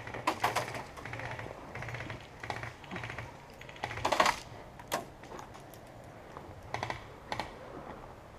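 Airsoft guns firing in several short bursts of rapid clicks, the loudest burst about four seconds in.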